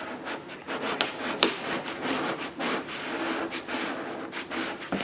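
Plastic squeegee rubbed in quick repeated strokes over the application paper of a vinyl decal on car paint, pressing the decal down; a couple of sharp clicks about a second in.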